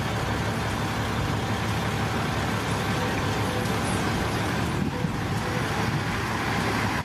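Large diesel tipper dump truck running steadily while its raised bed is lowered.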